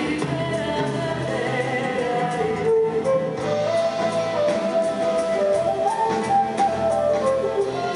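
Music playing: a melody held on long notes over a steady beat.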